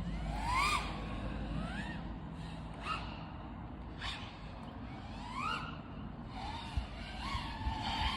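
FPV quadcopter motors and propellers whining, the pitch rising and falling in short throttle punches about four times, over a steady low rush of air.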